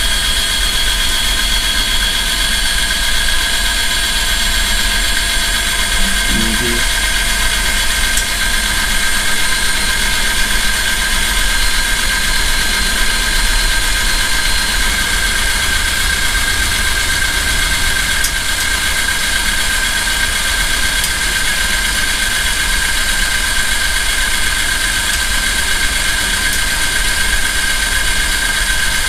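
Power drill running at a steady speed, spinning a Line-Off line stripper that winds fishing line off a reel: a steady high whine over a low rumble.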